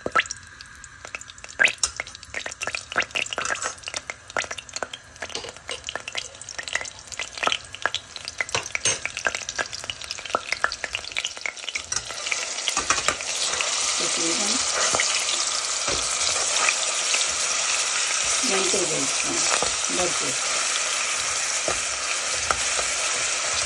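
Cumin seeds crackling and popping in hot oil in a steel pot. About twelve seconds in, garlic and ginger paste goes in and the oil breaks into a steady, loud sizzle as it is stirred.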